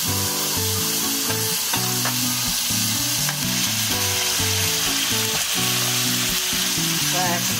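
Marinated pork neck and beef bulgogi sizzling steadily as they fry in a pan.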